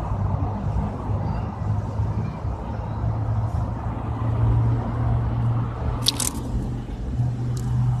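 Steady low rumble, with a brief crackle about six seconds in and a couple of faint ticks near the end.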